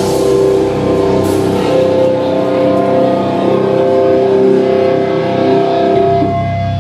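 A live metal band's amplified electric guitars holding a long, steady chord that rings on without drums.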